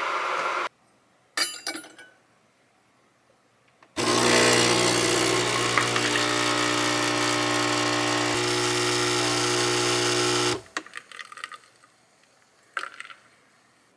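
Capsule espresso machine brewing a shot: a few clicks, then the pump buzzes loudly and steadily for about six seconds and cuts off sharply, followed by a few small clicks and rattles.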